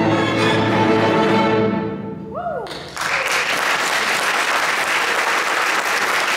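A school string orchestra holds its final chord, which fades away about two seconds in. Audience applause breaks out suddenly about three seconds in and carries on steadily.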